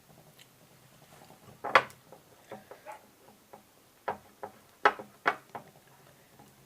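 A utensil tapping and scraping against a plate while sticky melted gummy slime is mixed with powdered sugar: a few scattered clicks and knocks, the loudest about two seconds in.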